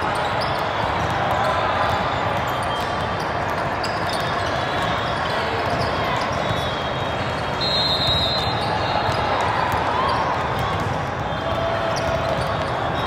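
The din of a busy volleyball tournament hall: many sharp thuds and slaps of volleyballs being hit and bouncing across many courts, over a constant murmur of voices, echoing in the large hall.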